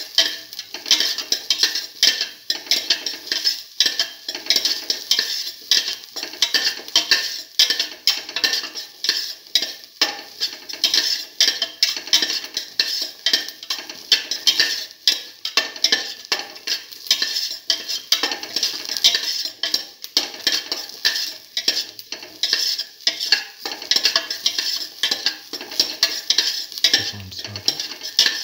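Sliced onion and whole shallots sizzling in hot oil in a stainless steel pot while being stirred continuously, the utensil scraping and tapping the metal in quick, irregular strokes.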